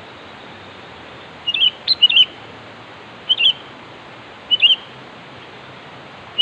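Sooty-headed bulbul calling with short, bright phrases of two or three quick notes, repeated about every second and a bit. The calls begin about a second and a half in, over a steady hiss. This is the loud, persistent calling used to challenge and draw rival bulbuls.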